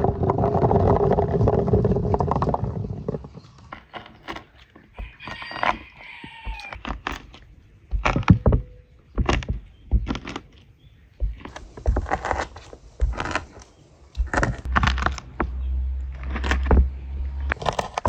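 Water pouring in a steady rush for about three seconds, then a run of knocks, clatters and scrapes from pots and utensils being handled.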